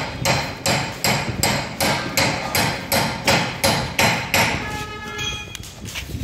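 Hammer striking metal in a steady rhythm, about two and a half blows a second, each with a short ring; the blows stop about four and a half seconds in, followed by a brief pitched tone.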